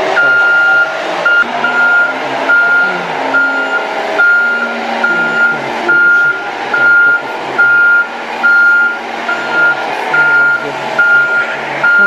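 Reversing alarm of a JCB telehandler beeping steadily, about one and a half beeps a second, over its running diesel engine, whose pitch shifts up and down as it works.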